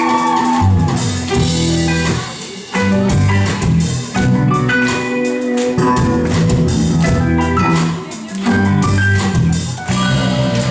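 Live band playing an instrumental passage: electric guitar chords over a drum kit, with brief breaks about two seconds and eight seconds in.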